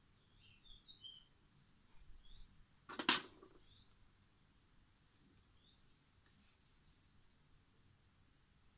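A hand tool cutting into the outer sheath of a red electrical cable: faint scraping, with one short, sharp scrape about three seconds in that is the loudest sound, and softer scrapes around six to seven seconds in. Faint bird chirps in the first second.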